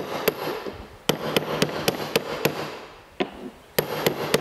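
A hammer tapping a new oil seal into its press-fit bore in a belt-tensioner arm: runs of sharp metal-on-metal taps, about four a second, each with a short high ring, as the seal is started into the hole.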